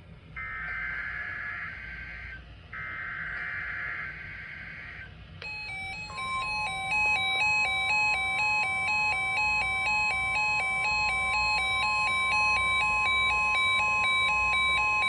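NOAA Weather Radio alert signalling: two screechy SAME digital header bursts, then, about five seconds in, a steady 1050 Hz warning alarm tone sounding with an alternating electronic alarm beep that lasts to the end.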